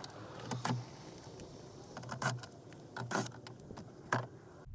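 A car speaker and its housing being handled: a few short clicks and knocks, about one a second, over a quiet background.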